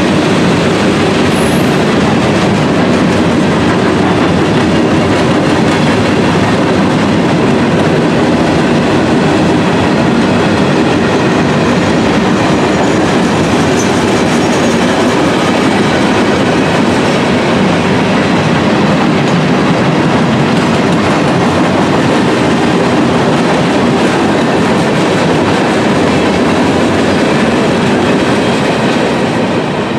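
Freight train of tank cars and covered hopper cars rolling past at speed: a steady, loud rumble and rattle of steel wheels on the rails, easing off near the end as the last cars go by.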